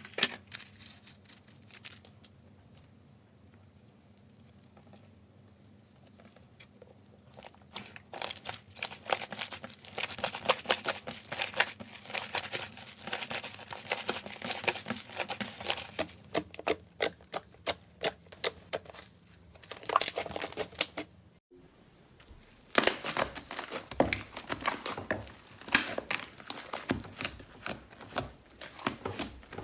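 Slime being squeezed and poked by hand, making a rapid crackle of small sticky clicks and pops. It is faint at first and grows busier. After a brief break about two-thirds of the way through, it starts again louder.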